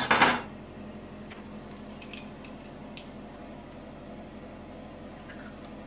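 An egg being cracked into a plastic mixing bowl: a knock at the start, then a few faint clicks of shell being pulled apart, over a steady low hum.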